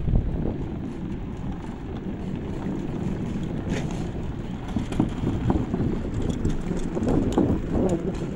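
Riding an e-scooter along a boardwalk: wind buffeting the microphone over the steady rumble of the wheels, with a few light knocks.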